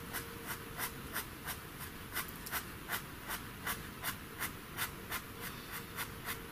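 Faber-Castell Pitt pastel pencil scratching on pastel paper in short, quick, even strokes, about three a second, as colour is hatched firmly into a drawing.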